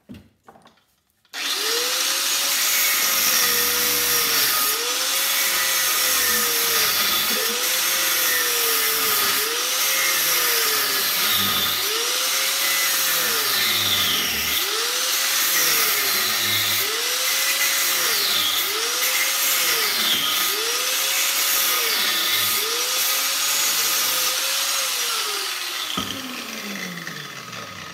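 Corded angle grinder starting about a second in and cutting down the grooves of an electric-motor armature, through the plastic that holds the copper windings in. Its pitch sags and recovers about once a second as the disc bites and lifts. Near the end it is switched off and winds down.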